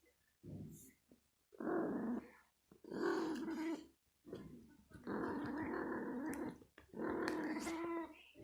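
Domestic cat growling and yowling in a series of about six drawn-out calls, the longest nearly two seconds long.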